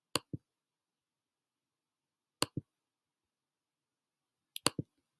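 Computer mouse clicked three times, about two seconds apart, each a sharp press followed by a duller release, paging through an on-screen e-book.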